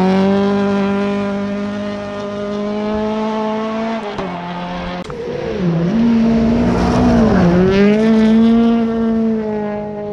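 Rally car engine held at high revs as the car runs through a gravel corner, its pitch dipping briefly and then climbing back three times, about four seconds in, just before six seconds and about seven and a half seconds in.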